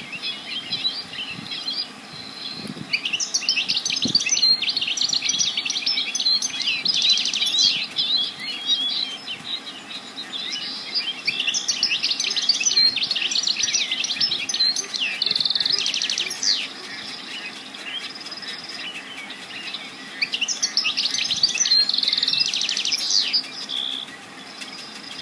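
Songbirds singing: bursts of rapid high chirps and trills lasting a few seconds each, with short pauses between phrases.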